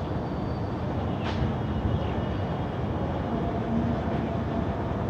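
Steady low outdoor rumble with faint, drawn-out horn-like tones in the middle, the unexplained sound heard in the sky; a short sharp click about a second in.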